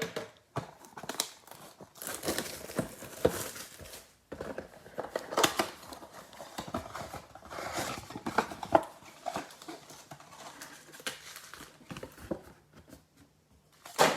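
Hands opening a sealed trading-card mega box: its plastic wrapping and packaging crinkle and tear in irregular bursts of rustling and crackling.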